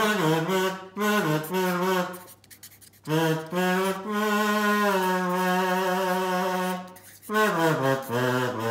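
A slow tune of long held low notes, sliding from note to note, with one note held for about three seconds in the middle and a falling slide near the end.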